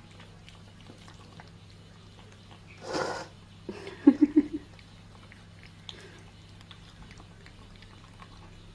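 Pet cats eating, with faint chewing clicks over a steady low hum. About three seconds in comes a short noisy burst, and right after it a cat gives a quick run of four or five short, low pulsed calls.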